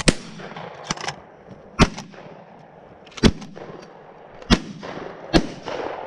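Shotguns fired repeatedly at flying birds: about five loud, sharp shots roughly a second or so apart, with two fainter shots in between about a second in.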